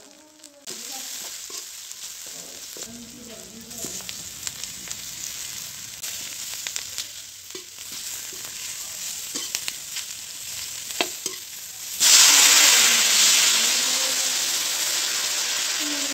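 Onions, spices and small whole potatoes sizzling in hot oil in a metal kadai, stirred with a spoon that scrapes and clicks against the pan. About twelve seconds in, a sudden loud hiss as water hits the hot oil, easing into a steady sizzle.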